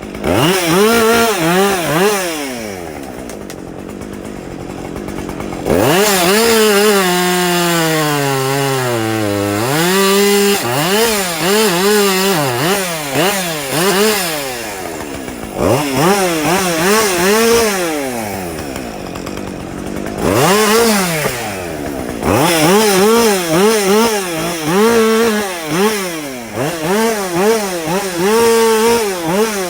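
Gasoline chainsaw cutting storm-downed timber, its engine revving up and down over and over. Twice it drops back to a low idle. In one long cut the pitch sags steadily as the saw bogs down under load.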